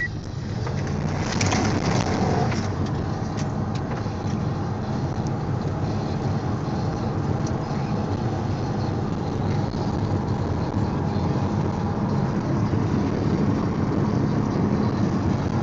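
Pontiac Grand Prix GXP's V8 engine running hard at speed, heard from inside the cabin over road and wind noise. It gets louder about a second in, with a few light knocks around then.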